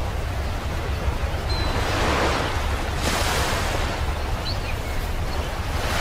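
Ocean surf washing onto a beach over a steady low rumble. A wave swells in about two seconds in and peaks around three seconds, and another builds near the end.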